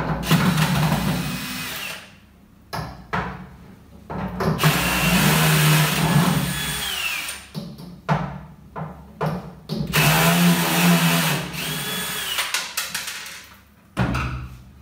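Cordless drill-driver running in reverse to back the hinge screws out of a wooden cupboard door. It runs in three main spells of two to three seconds each, with short blips of the trigger between them.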